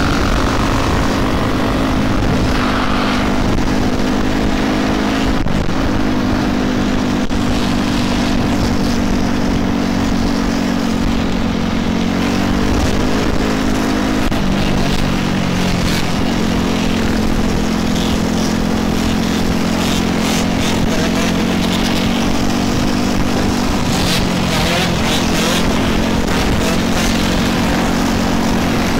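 Steady engine drone from a pack of riders on dirt bikes, ATVs and scooters cruising together, mixed with road and wind noise. The engine pitch steps down about halfway through, as the riders ease off.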